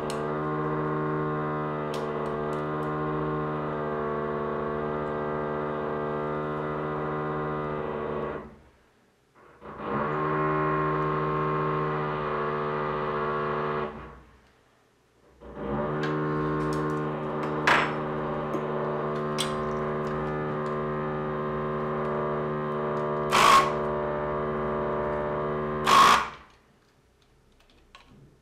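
Someone else's power drill heard through the building, muffled: three long runs of a steady buzzing drone, breaking off twice for a second or two. A few sharp knocks sound during the last run.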